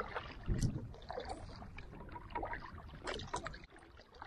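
Canoe paddle strokes: irregular splashing and dripping of water as the paddle dips and pulls, with a low thump about half a second in.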